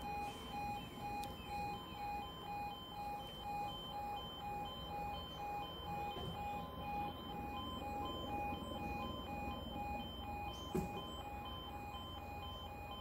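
Level crossing warning alarm sounding, an electronic tone pulsing evenly about twice a second while the road lights flash, warning that a train is coming and the barriers are about to lower. A brief knock about eleven seconds in.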